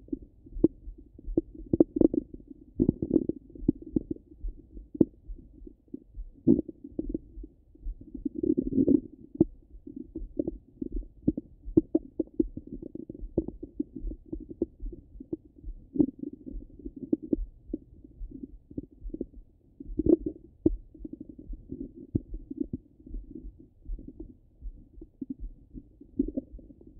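Stomach and bowel gurgling heard through a stethoscope on the abdomen: irregular low, muffled gurgles with frequent short pops.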